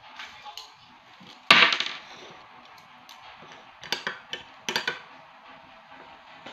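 Handling noise. A sharp knock comes about a second and a half in, then two short runs of clattering knocks come around four and five seconds in.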